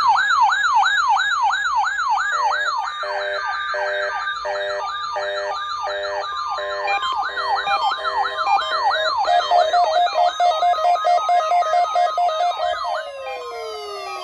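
Several electronic alarm sirens sounding together, set off by a NOAA Weather Radio weekly test alert: a yelping siren sweeping up and down about two to three times a second, joined about two and a half seconds in by a pulsing multi-tone beep. Near the end the sweeping stops and the tones glide downward as the sirens wind down.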